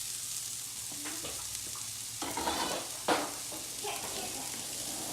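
Food sizzling in a hot frying pan, a steady hiss, with a few scraping stirs and a sharp knock of the utensil or pan about three seconds in.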